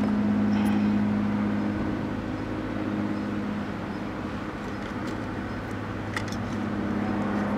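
A steady low electrical hum, weaker in the middle and stronger again near the end, with a few faint clicks as a hand touches the vacuum tubes in the TV chassis.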